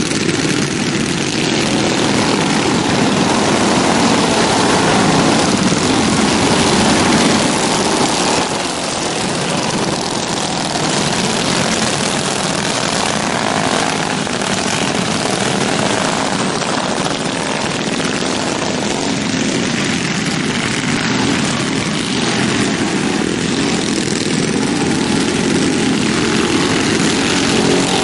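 A field of alcohol-fuelled racing kart engines running hard around a dirt oval, a dense, steady engine drone that swells and eases as the pack laps, a little louder in the first several seconds.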